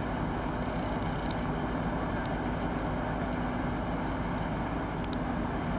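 Fire trucks' diesel engines running steadily, a constant hum, with a few light clicks.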